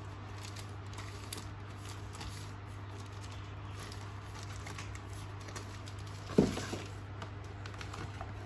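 Plastic wrapping rustling and light taps on cardboard as a wrapped part is handled during unboxing, with one louder thump about six seconds in as it is set down on the cardboard box. A steady low hum runs underneath.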